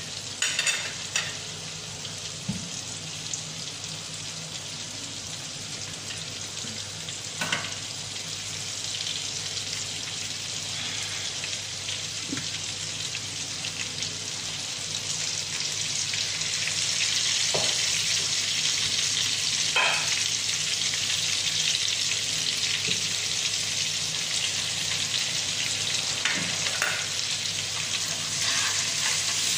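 Butter and lemon sauce sizzling in a nonstick frying pan, a steady hiss that grows louder about halfway through. A few light knocks are heard, and a spoon stirs the sauce near the end.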